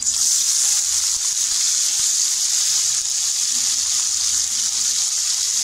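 Sliced onions dropped into hot cooking oil, setting off a loud, steady sizzle that starts suddenly as they go in. This is the start of frying the onions golden brown.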